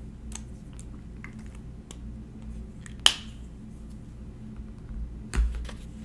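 Light plastic clicks of a pen being handled, with one sharp snap about three seconds in as its cap is pushed on, and a duller knock near the end.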